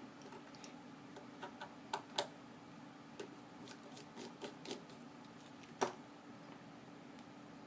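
Scattered light clicks and taps, about a dozen irregular ones with the sharpest about two seconds in and near six seconds in, as a folding knife and its small parts are handled during disassembly.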